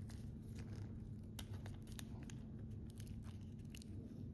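Faint scattered clicks and rubbing as the plastic barrel of an NMEA 2000 field connector is slid down the cable by hand, over a steady low hum.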